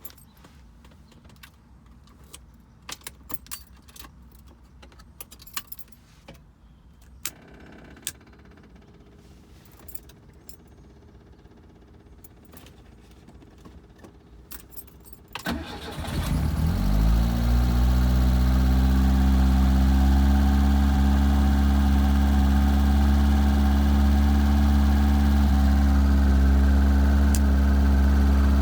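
Keys jangling and scattered clicks for about fifteen seconds, then the 1978 Fiat 124 Spider's twin-cam four-cylinder engine is cranked, catches and settles into a steady, much louder idle. This is the rough idle being diagnosed.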